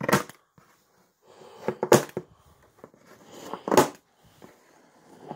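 Scissors cutting through plastic packing straps: three sharp snips about two seconds apart, each after a short rustle.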